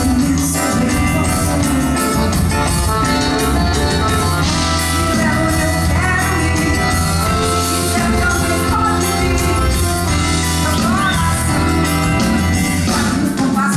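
Live band music during a sound check: drum kit keeping a steady beat under bass and other instruments, with a voice singing.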